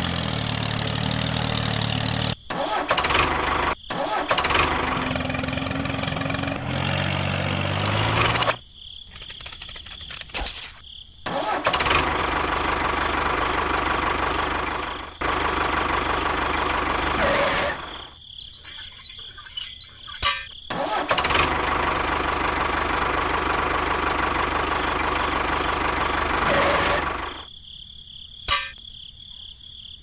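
Tractor engine running in several separate stretches, each starting and stopping abruptly, with quieter gaps between them.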